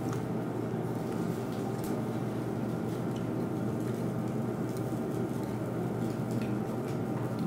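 Steady low hum of room or grill ventilation, with a few faint light clicks of chopsticks and tongs.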